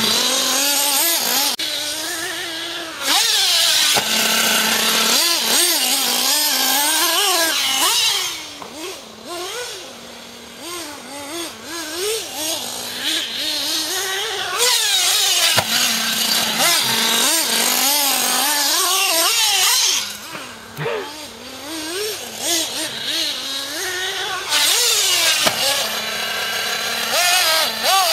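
Small nitro engine of a 1/8-scale RC off-road buggy revving hard and fast up and down as it is driven over dirt jumps, growing fainter twice as the buggy moves away and louder again as it comes back.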